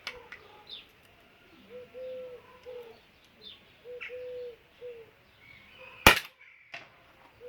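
A single sharp shot from a CO2-powered Beretta 92 airsoft pistol firing a 6 mm steel BB, about six seconds in. Before it, a dove coos repeatedly in the background, with a few short bird chirps.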